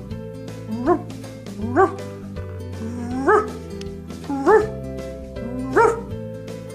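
Small white puppy giving short, high yips, about five in all, roughly one a second, each rising in pitch. Background music with steady held notes plays underneath.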